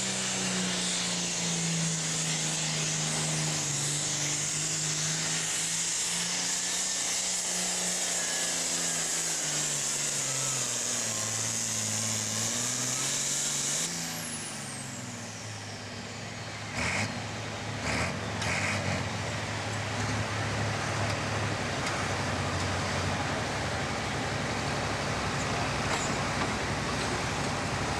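John Deere 8410 super farm pulling tractor's turbocharged diesel engine running hard under load as it pulls the sled, its pitch wavering and dipping with a loud high turbo hiss. About halfway through it is throttled back: the turbo whine falls away, a couple of sharp knocks sound, and the engine settles into a lower, steady run.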